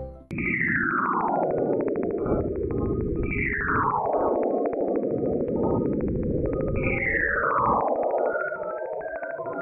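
Space radio or plasma-wave recording converted to sound: dense crackling static with three descending whistles, each sliding from high to low over about a second, roughly three seconds apart.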